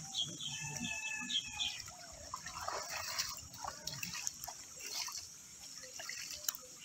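Pond water splashing and dripping as a cast net is hauled in by hand, in irregular small splashes and drips.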